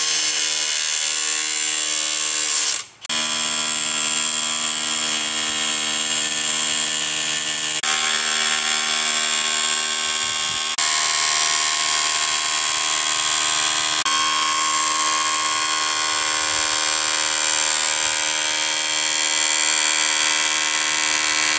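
Cordless Craftsman hammer drill in hammer mode, driving a ground rod into the soil through a ground-rod driver adapter. It runs steadily and loudly, with one brief stop about three seconds in.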